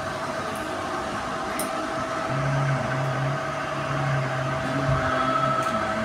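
Steady machine hum with a constant mid-pitched tone, joined by a lower drone from about two seconds in until near the end, with a few faint clicks.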